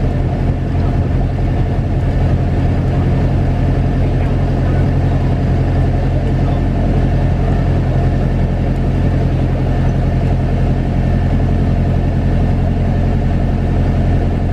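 Steady engine drone of an Airbus A321-231 taxiing, heard from inside the passenger cabin: a deep, even hum with a few steady tones above it, its two IAE V2500 engines at idle.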